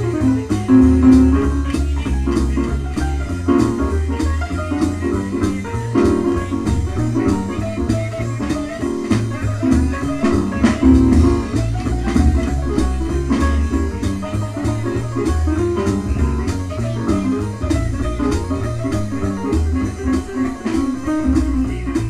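Jazz piano trio playing from a vinyl LP on a turntable: piano over plucked double bass notes moving in a steady pulse, with drums and cymbals.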